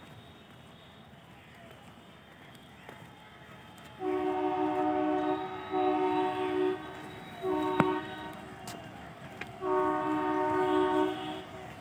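Electric locomotive's two-tone air horn sounding four blasts: two long ones close together about four seconds in, a short one, then a longer one near the end.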